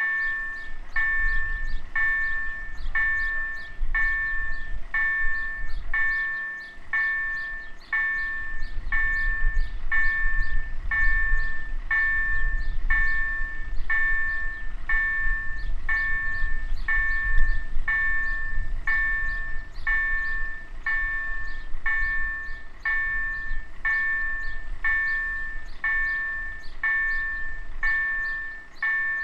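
Railroad level-crossing warning bell ringing steadily, about two strokes a second, while the barriers are down and the red lights flash, signalling an approaching train.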